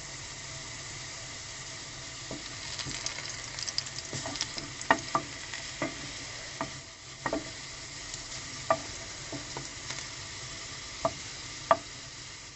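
Garlic sizzling steadily as it fries in a pan, with a utensil stirring it and clicking sharply against the pan about a dozen times at irregular intervals.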